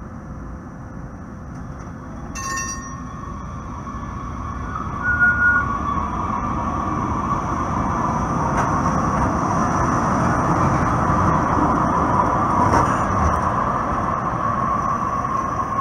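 Breda light rail train rolling past on curved track, its wheels squealing in a steady high tone over a low rumble that grows louder as it nears. A single chime-like ding sounds about two seconds in.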